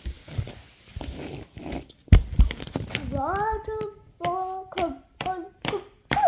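Knocks and taps of toys being handled on a surface, the loudest about two seconds in. A child's voice then sings a short tune of a few held notes, with more taps between them.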